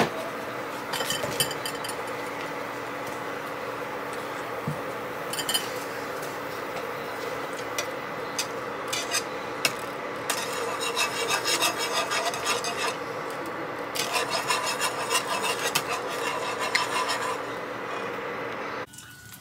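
Wire whisk scraping and rattling against a small metal pan as butter is whisked into a boiling wine sauce reduction, in repeated bursts of quick strokes that grow busier about halfway through, over a steady hum. The sound cuts off just before the end.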